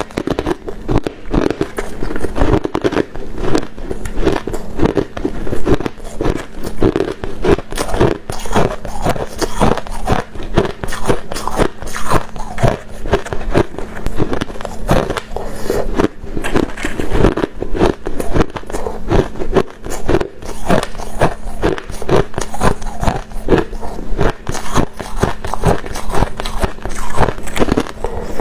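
Ice being bitten and chewed close to the microphone: continuous, dense crunching and crackling with no pauses.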